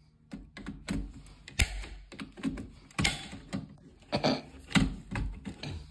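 Insulated screwdriver working the terminal screws of consumer-unit circuit breakers: an irregular string of sharp clicks and scrapes as the blade seats in the screw heads and the terminals are tightened.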